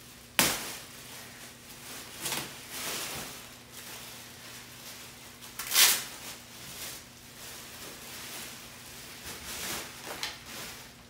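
Handling noises as a thick upholstered back cushion is moved onto a chair: irregular scuffs and bumps, the loudest about six seconds in.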